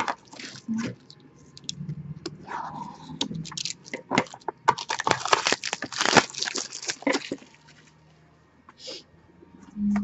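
Crinkling and tearing of the wrapping and packaging as a box of trading cards is opened: a dense run of sharp crackles that builds to its busiest between about four and seven seconds, then dies away.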